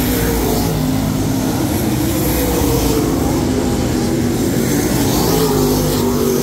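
Dirt late model race cars' V8 engines running hard around the oval, several at once, their pitches rising and falling as the cars go through the turns and down the straights.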